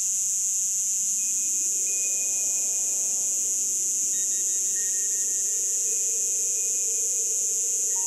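Chorus of Brood X periodical cicadas: a steady, high-pitched buzz that does not let up, with soft music notes over it.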